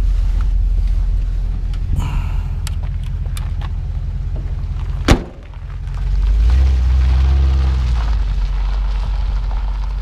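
Low, steady rumble of the 1956 Dodge's 315 V8 idling, with a single sharp thump about five seconds in.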